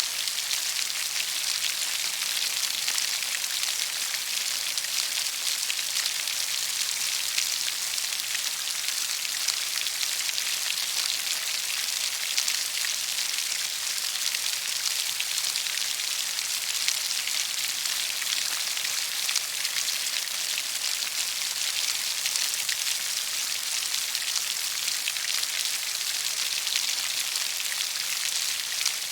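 Steady rainfall: a dense, even hiss of many raindrops pattering on a surface, with fine drop ticks and no change in strength.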